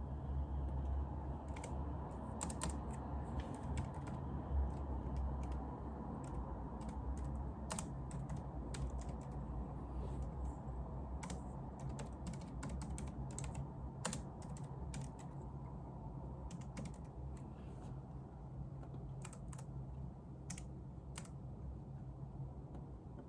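Typing on a computer keyboard: irregular runs of key clicks that thin out and stop near the end, over a steady low room hum.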